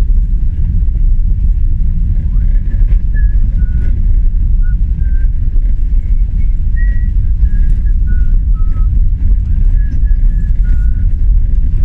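Kawasaki ZRX 1100's inline-four engine running with a loud, steady low rumble, the bike brought back to life after years laid up. Short high chirps at shifting pitches sound over it throughout.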